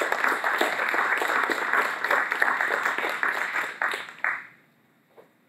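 Audience applauding: a burst of dense clapping that dies away about four seconds in.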